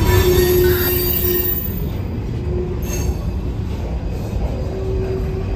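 CSX freight train of covered hopper cars rolling past: a steady heavy rumble and rattle of wheels on rail, with a held squeal that comes and goes three times, strongest in the first second and a half.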